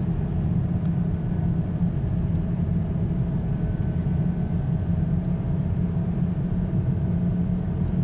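Steady low rumble of a car driving, heard from inside the cabin: engine and tyre noise on a snow-covered road.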